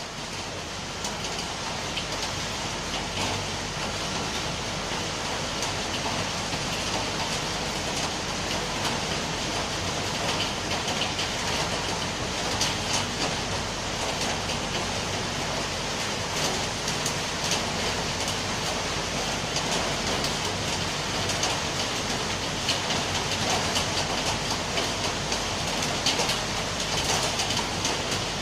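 Steady rain falling, a dense even hiss peppered with many individual drops ticking, swelling up over the first couple of seconds and then holding steady.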